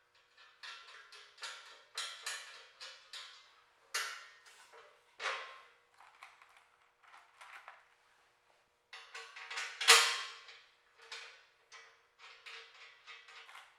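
Steel sawmill bunks and bolts being fitted to the track rails with a wrench and socket: an irregular string of metallic clicks, clinks and knocks, the loudest about ten seconds in.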